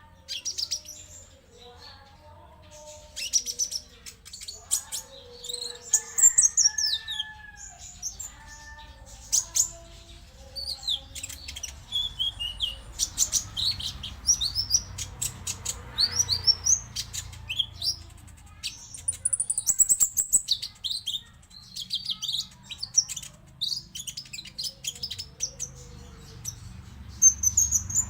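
Konin songbird singing: a dense run of rapid, high chirps, trills and sharp ticks, with lower whistled notes mixed in, mostly in the first half.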